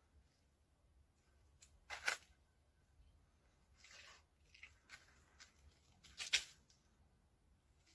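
Quiet outdoors with a few short crunching rustles of dry leaves and dirt underfoot, sharp ones about two and six seconds in and a fainter one near four seconds.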